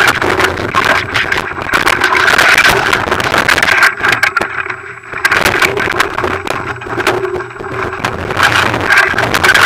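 Continuous rattling and knocking from a bike-mounted camera jolting over a rocky dirt trail, over a steady drone. The drone dips briefly near the middle.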